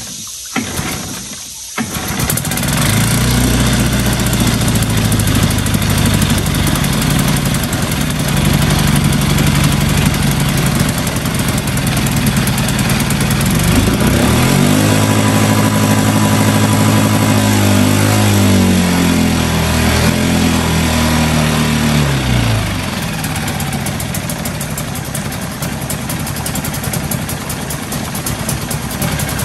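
Brand-new Hangkai 6.5 hp four-stroke outboard, mounted over a water test barrel, pull-started cold on choke. It catches about two seconds in and runs revving high; its pitch climbs about halfway through and drops back a few seconds later. The high running speed comes from an idle-speed screw set too far in.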